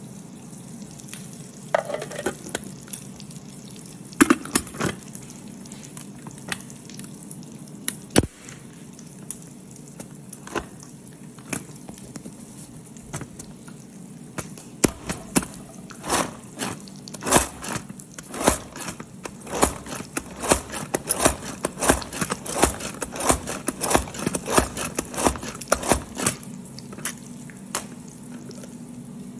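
Vegetables being chopped: sharp knocks, a few scattered ones at first, then a quick run of several a second for about ten seconds before it stops.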